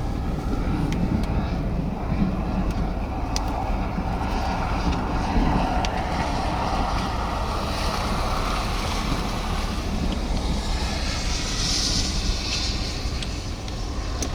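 Steady wind rushing over and buffeting the microphone, heaviest in the low rumble, with a few faint ticks.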